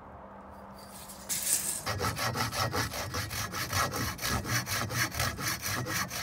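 Coarse-toothed hand saw cutting through a 2x4 board, starting about two seconds in with quick, even back-and-forth strokes.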